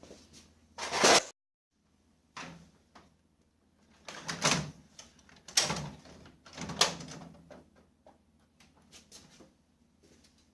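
A few separate knocks and sliding clunks, like a panel, door or tray of a laser printer being opened and shut, over a faint steady low hum.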